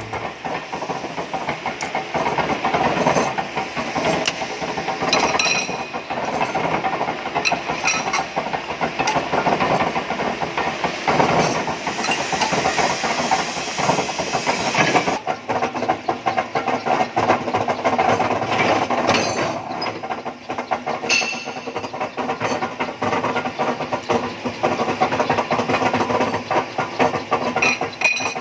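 Metal-shop machinery working heavy steel plate: a steady rushing hiss with scattered clanks and knocks. The sound changes character about halfway through.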